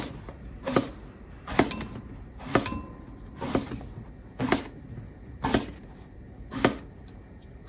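A ceramic knife cutting through raw eggplant on a wooden cutting board, about eight cuts at roughly one a second. Each stroke gives a short squeak ('kyu-kyu') as the blade passes through the firm, spongy flesh, then meets the board.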